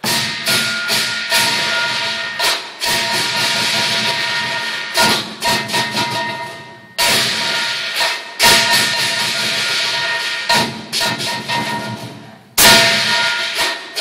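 Lion dance percussion: a large drum beaten rapidly under crashing, ringing cymbals and gong, played loud. It breaks off briefly three times, each time starting again with a loud crash.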